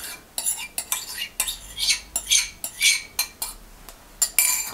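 A metal spoon scraping and clinking against the inside of a small bowl: a quick string of short scrapes and taps, with a longer, louder scrape near the end.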